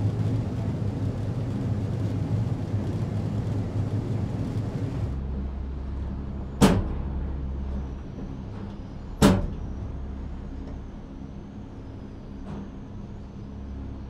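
Gondola lift running: a steady low rumble and hum that changes about five seconds in, with two sharp knocks about two and a half seconds apart and a fainter one near the end.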